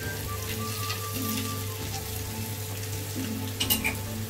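Beef strips, onion and carrots sizzling in a hot frying pan as pats of butter are added and stirred in with a spatula, over a steady low hum. There is a brief clatter of the spatula against the pan near the end.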